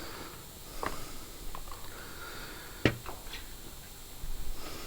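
Light clicks and knocks of brushcutter parts being handled during reassembly, with one sharper knock nearly three seconds in.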